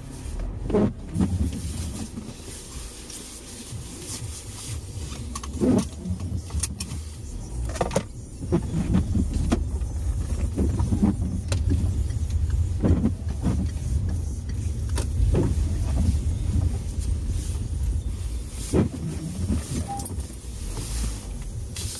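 Car driving slowly on a wet road, heard from inside the cabin: a steady low rumble of engine and tyres with a light hiss, broken by scattered short clicks and knocks.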